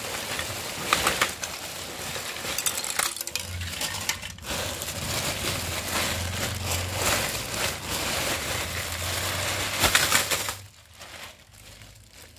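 Plastic bags crinkling and rustling as hands pull open a plastic mailer and handle the clear plastic wrapping. The crinkling stops suddenly shortly before the end.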